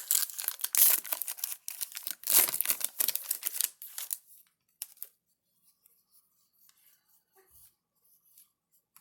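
Wrapper of a jumbo pack of baseball trading cards being torn open, crackling and tearing in quick bursts for about four seconds, then only a few faint clicks.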